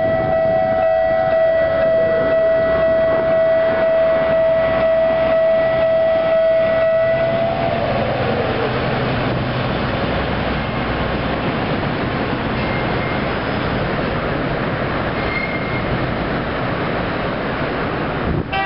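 Railway level-crossing warning bell ringing in a steady tone, cutting off about seven seconds in. After it stops, a small diesel shunting locomotive rumbles past, its engine and steel wheels rolling on the rails.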